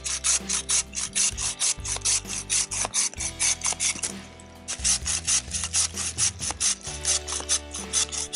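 A small folding buck saw with an ash frame and steel blade cutting through a branch in quick, even back-and-forth rasping strokes. The strokes stop briefly about four seconds in, then start again.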